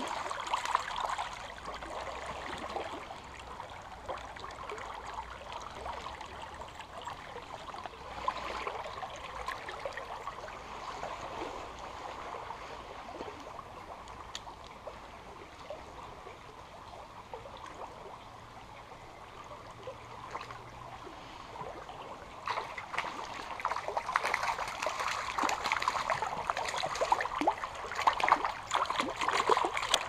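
Shallow, fast river water trickling and burbling steadily over stones. For the last several seconds it gets louder, with irregular splashing in the water.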